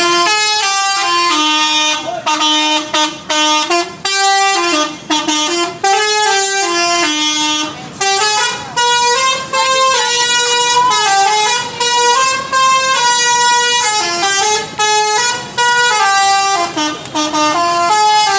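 Telolet musical air horns on Indonesian intercity buses, playing a tune of held notes that step up and down in pitch, with short breaks between the notes.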